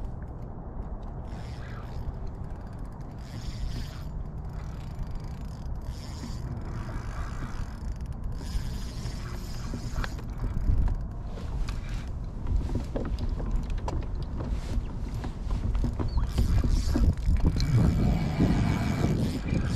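Wind buffeting the microphone over water lapping against a plastic kayak hull, with scattered clicks and creaks from the kayak's gear. The noise grows louder and harsher near the end.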